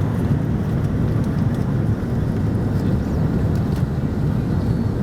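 Airbus A330-300 jet engines and airflow, a steady low rumble that holds even without rising or falling.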